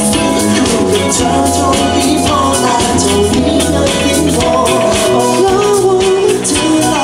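Live band playing a pop song over a PA, with a male voice singing into a handheld microphone over a steady drum beat.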